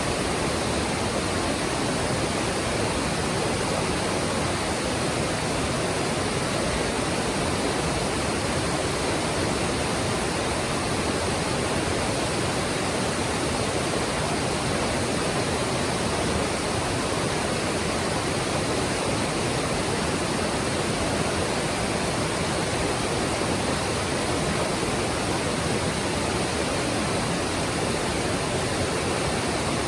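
Mountain stream water rushing and splashing over rocks, a steady, even sound.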